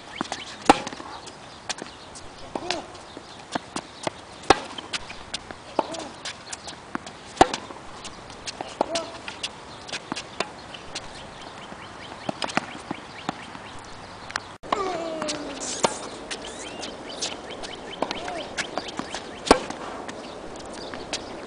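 Tennis balls struck by rackets in a rally: sharp pops every second or two, some loud and near, others fainter from across the court.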